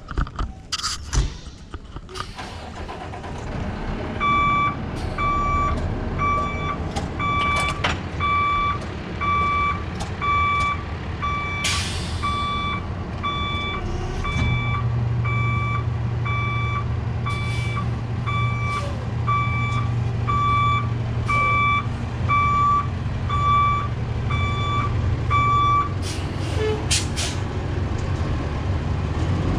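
Peterbilt roll-off truck's Cummins diesel engine running while it backs up, its reversing alarm beeping steadily a little more than once a second for about twenty seconds. A short air hiss comes near the middle, and a steady low hum joins the engine for the second half of the beeping.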